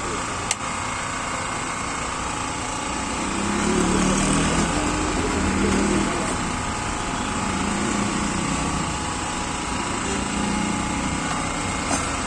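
A small engine running steadily, a constant drone with a fixed whine, a little louder for a couple of seconds in the middle. A sharp click sounds about half a second in and another near the end.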